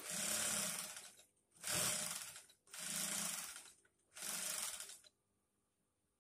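Industrial sewing machine stitching in four short runs of about a second each, stopping about five seconds in.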